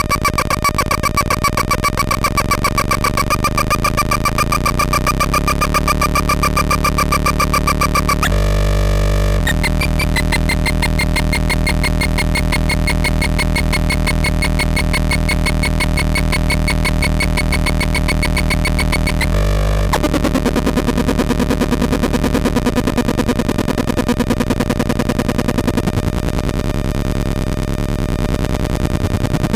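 Homemade NAND-gate square-wave noise synth playing a harsh, buzzing drone of several tones with a fast pulsing texture. Its pitches slide and the sound changes abruptly about 8 seconds in and again around 19 to 20 seconds.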